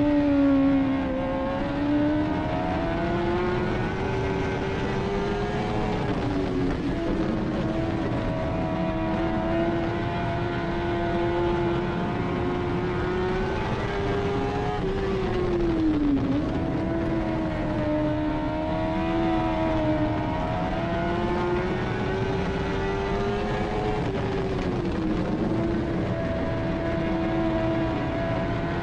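Dirt-track race car's engine heard from inside the cockpit at racing speed. Its pitch swells and falls, dipping sharply every several seconds as the throttle comes off and back on through the turns.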